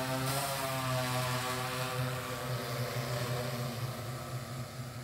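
Multirotor crop-spraying drone's propellers humming steadily as it flies over the paddy, with a slight waver in pitch early on and growing fainter near the end.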